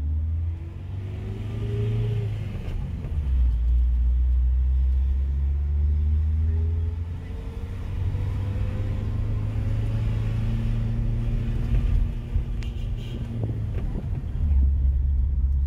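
City bus engine and cabin rumble heard from inside the moving bus, with the engine note climbing as the bus accelerates, once briefly near the start and then slowly over several seconds.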